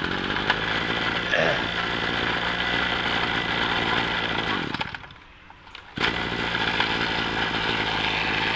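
Tanaka 34 cc two-stroke brush cutter engine idling steadily. It winds down and stops about five seconds in, then fires up again a second later and idles on.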